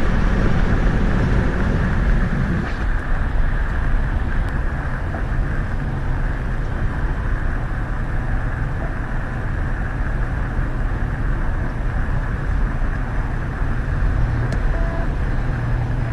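Steady road and engine noise of a car being driven, an even rumble with no breaks.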